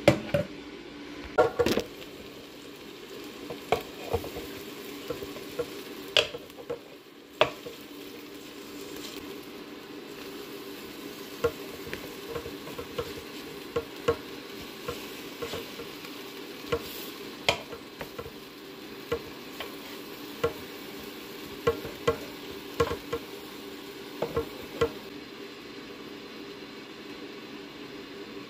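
Metal kitchen tongs clicking and scraping against a cooking pot as they turn pieces of chicken, in sharp irregular clicks, loudest in the first couple of seconds. A steady hum runs underneath.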